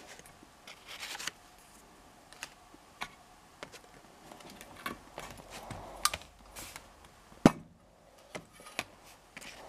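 Light clicks, taps and rubbing as a metal tin of filler and a tube of hardener are handled on a table and the tin's lid is opened, with one sharper knock near the end.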